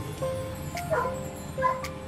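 Background music with a melody of held notes, and a couple of short sharp sounds, one about halfway through and one near the end.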